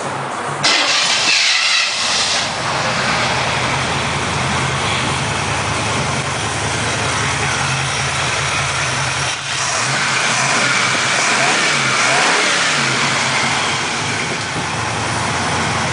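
350 small-block V8 engine: a sudden loud burst about a second in, then running steadily, with the pitch rising and falling a few times later on as it is revved.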